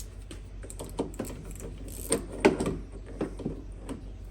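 Hand ratchet clicking and metal tool clinks while a threaded lock ring is turned into a rebuilt off-road control arm: irregular sharp clicks, the loudest clank about two and a half seconds in.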